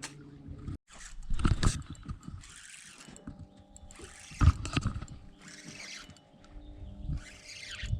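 Small boat under way, its outboard motor running with a steady hum, the hull thumping over the water and repeated hissing bursts of spray and wind.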